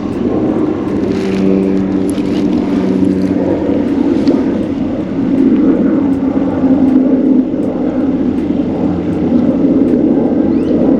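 An engine running with a steady hum, its pitch dropping slightly about halfway through.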